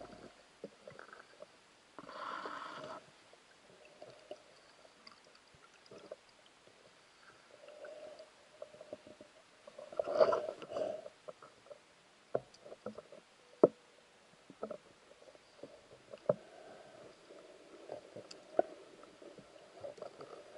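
Muffled underwater sounds from a diver moving through submerged reed stems: scattered clicks and knocks, a short hiss about two seconds in, and a muffled gurgling burst about ten seconds in.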